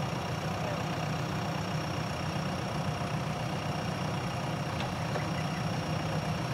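JCB backhoe loader's diesel engine idling steadily, with no revving.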